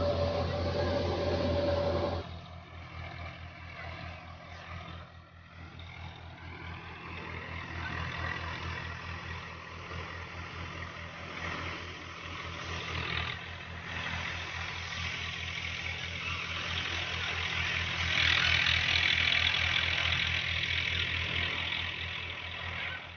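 Engine-driven wheat thresher running steadily, with a low even engine thrum. A higher steady drone drops out about two seconds in, and a louder rushing noise comes in near the end.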